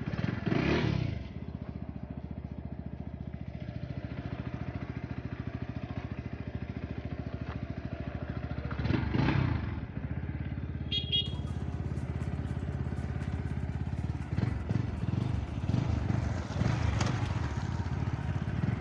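Motorcycle engine running steadily with an even firing rhythm, with a few brief voices over it.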